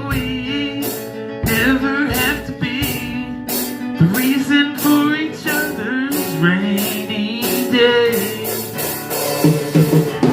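A band playing a song's instrumental outro: drum kit with cymbal strokes at an even pace, guitar and bass holding notes, and a wavering melody line on top.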